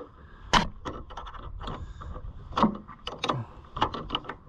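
Irregular metal clinks and knocks, the loudest about half a second in, as a pickup's battery cable terminal is fitted and tightened onto the battery post.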